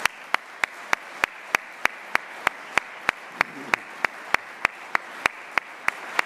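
Audience applauding, with sharp, evenly spaced claps about three a second standing out above the general applause.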